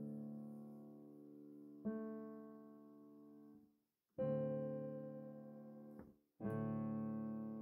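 Background music: slow, sustained piano chords, each struck and left to ring and fade, with a new chord every two seconds or so and short silent gaps between some of them.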